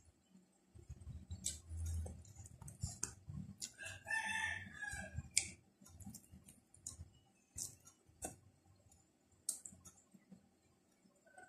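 A rooster crows once, about four seconds in, a call of a little under two seconds. Around it come close-up eating sounds: chewing, mouth clicks and the handling of fresh leaves.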